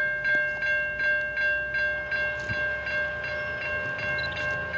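Railroad crossing bell ringing steadily at about three strikes a second as the crossing gates rise, with a faint low rumble underneath.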